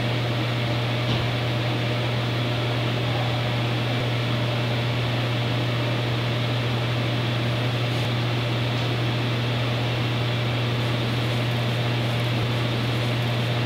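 A steady low hum with an even hiss over it, unchanging and without footsteps or other events: a droning sound bed.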